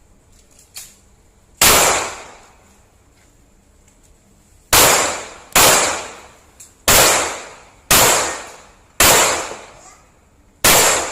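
CZ Shadow 2 9mm pistol firing seven shots: a single shot, a pause of about three seconds, then six shots in a string about a second apart, each a sharp bang with a short ringing tail.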